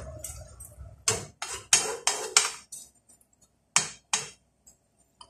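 Slotted spatula scraping and knocking against a frying pan as chunks of potato and chicken are stirred: a quick run of strokes in the second and third seconds, then two more about four seconds in.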